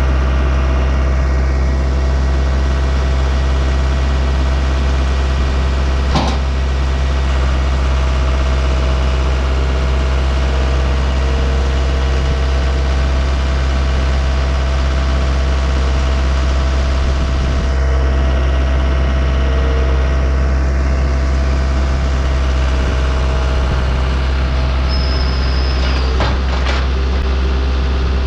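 Wood-Mizer LT15 band sawmill running steadily while sawing a Douglas fir log. A single sharp click comes about six seconds in, and a brief high whine and a couple of clicks come near the end.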